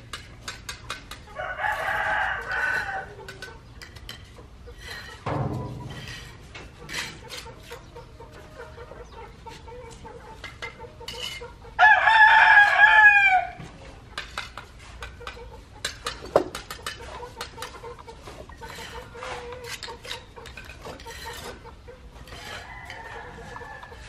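A rooster crowing twice, first about a second and a half in and again, louder, near the middle, each call lasting under two seconds. Frequent light clicks and knocks, with one low thump, run underneath.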